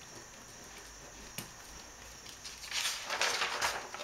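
Paper rustling as a sheet of a graph-paper pad is turned over and smoothed flat by hand, starting a little before three seconds in, after a quiet stretch with a single small tap.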